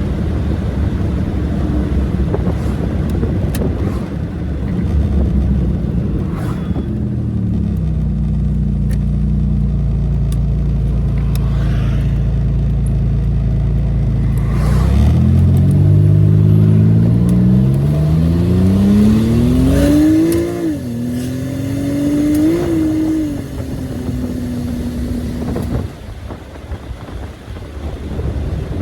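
1986 Buick Grand National's turbocharged 3.8-litre V6 driving. It runs at steady lower revs for a while, then accelerates hard, its pitch rising and dropping twice as the automatic transmission shifts up, before settling and easing off near the end.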